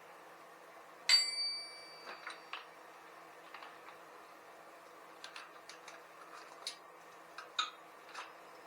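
Metal tools and parts clinking: one sharp metallic clank about a second in that rings briefly, then scattered small clicks and taps.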